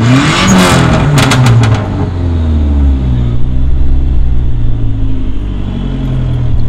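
Dodge SRT-4's turbocharged 2.4-litre four-cylinder engine revved hard in neutral: the revs peak right at the start and fall back, with a quick run of sharp pops about a second in, then it settles to a steady low idle.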